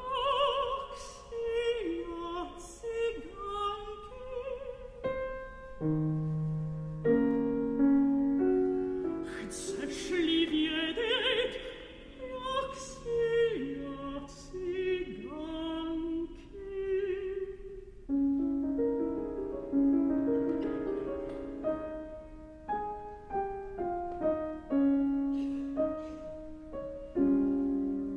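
Operatic tenor voice singing in Czech with wide vibrato, accompanied by piano.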